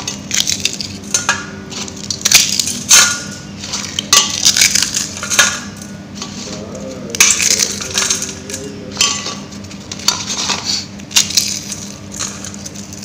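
Crisp deep-fried pooris being crushed and broken by hand onto a stainless steel plate. Irregular crackling crunches come again and again, with pieces dropping onto the steel.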